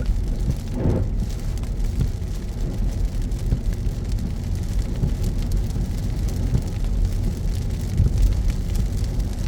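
Steady low car road and engine rumble heard while driving in heavy rain, with rain pattering on the car.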